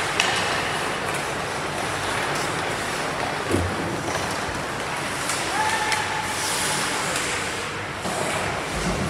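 Ice hockey game in a rink: a steady scraping hiss of skates on the ice with clacks of sticks and puck, a thud about three and a half seconds in, and a brief held tone near the middle.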